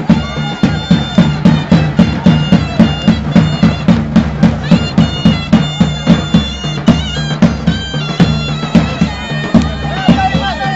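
Davul and zurna playing a sinsin dance tune: a loud reed melody held over a drone, with the drum beating steadily at about three strokes a second.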